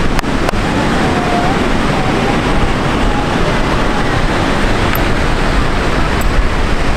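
Wind rumbling on the microphone over the steady wash of breaking surf.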